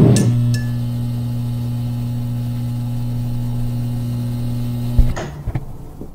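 Low electronic hum from a title-sequence sound effect: a few steady tones held unchanged for about five seconds, then a sharp click and a fade away.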